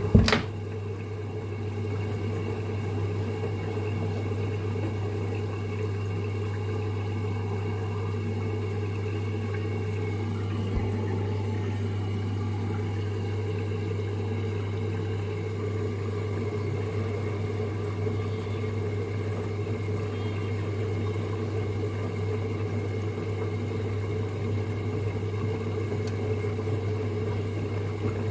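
LG F2J5WN3W washing machine running with a steady low hum while in suds lock, the state it enters when it detects too much suds. A sharp click sounds just at the start.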